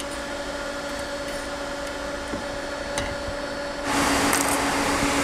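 A steady mechanical hum, then about four seconds in a loud rush of fan-blown air starts up and keeps going.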